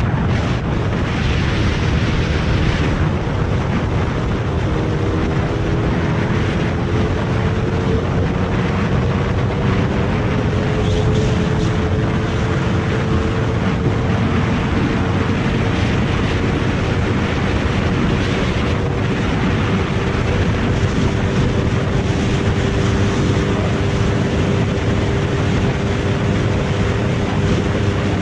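Motorcycle engine running at high speed in a high gear, its note climbing slowly and then holding steady, under heavy wind rush on the microphone and road noise.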